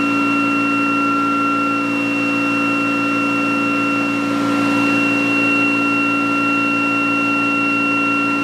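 A ReGen-X generator spun by its prime mover, running steadily on load while charging batteries, with an even hum and a high whine at a fixed pitch.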